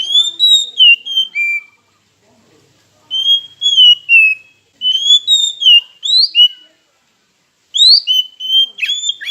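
Oriental magpie-robin singing: clear whistled phrases of sliding, rising and falling notes, in four short bursts with brief pauses between them.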